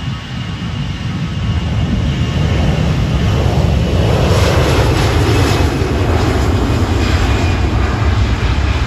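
Airbus A321 jet airliner's engines at takeoff power, a loud rumbling jet roar that grows over the first three seconds and then holds steady.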